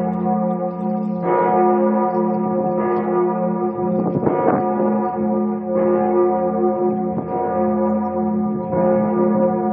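The Kardinalsglocke, a large church bell in Münster's St. Paulus Cathedral, tolling slowly as a midday memorial toll. It is struck about every one and a half seconds, each stroke humming on under the next. Strong wind on the microphone adds a low rumble.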